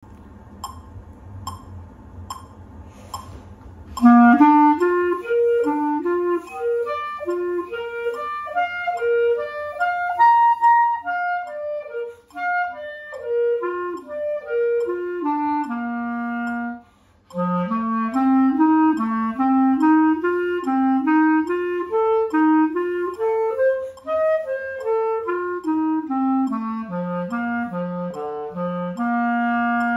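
Clarinet playing a B♭ scale exercise, starting about four seconds in. It climbs in a zigzag of short notes about two octaves and comes back down to a held low B♭. After a brief pause it plays a second, lower-lying run that ends on a long held low note.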